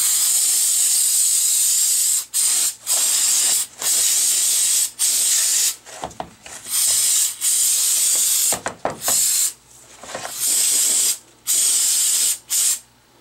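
Aerosol cleaner can spraying down a hydraulic pump casing in a series of about ten hissing bursts, the first one long and the rest short, with brief pauses between them.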